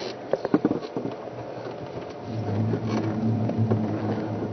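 Scattered crackling clicks, then from about two seconds in a steady low motor hum.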